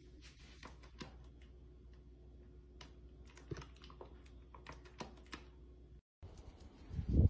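Paper microwave-popcorn bag rustling and crinkling in scattered small clicks as a dog moves its head inside it. Near the end, after a brief dropout, a louder low rumble.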